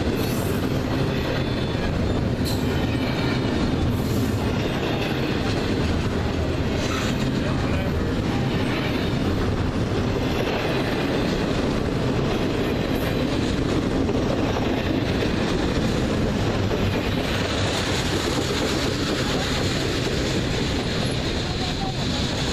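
Cars of a slow intermodal freight train rolling past, a steady rumble with the wheels clicking over rail joints now and then and some faint wheel squeal.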